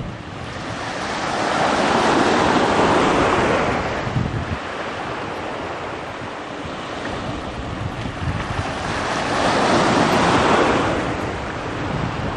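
Small waves washing against the shore: two swells of hiss, each rising and fading over a few seconds, over a low rumble of wind on the microphone.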